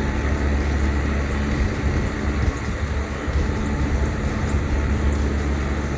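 Steady low rumble of background noise with a faint steady hum above it and no distinct events.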